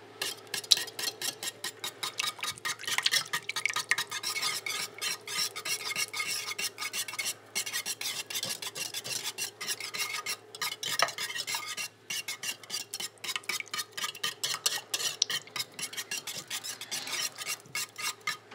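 Wire whisk beating thick creamed soup and broth in a slow cooker's crock: fast, rhythmic clicking and scraping of the wires against the pot, with a couple of brief pauses.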